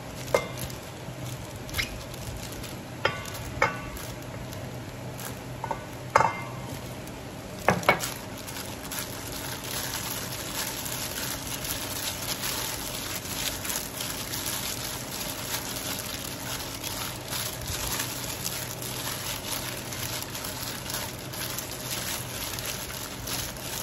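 A few sharp clinks with a brief metallic ring against a stainless steel bowl in the first several seconds. Then a steady crinkling, rustling noise as a hand in a plastic glove tosses cubes of pomelo pith in tapioca starch in the bowl.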